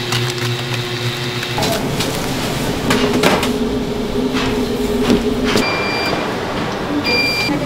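Commercial kitchen machinery humming steadily, with several sharp knocks and clatters. Near the end, a convection oven's control panel gives two short electronic beeps about a second apart.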